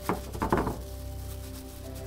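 Soft background music with steady held notes, and a short cluster of knocks and rustles about half a second in as grated raw potato is pressed down into a ceramic baking dish by a gloved hand.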